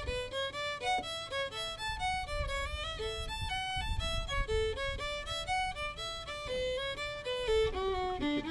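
Background music: a lively melody of quick notes stepping up and down, several notes a second.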